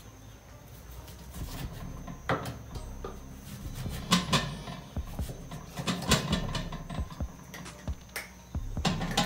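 Kitchen knife chopping onion on a mango-wood cutting board: irregular sharp knocks of the blade hitting the board, a few louder taps among softer ones.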